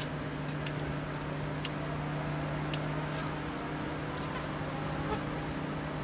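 Small birds chirping in short, high, scattered notes over a steady low hum.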